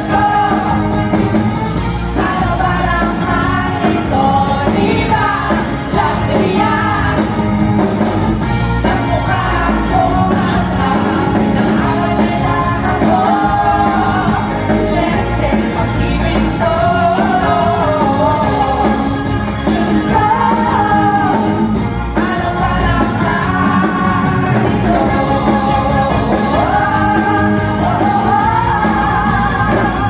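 A singer's voice over a full pop-rock band, one continuous song.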